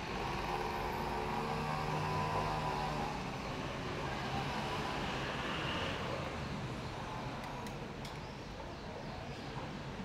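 Town street traffic noise, with a motor vehicle's engine hum passing during the first few seconds and then fading into steady street ambience.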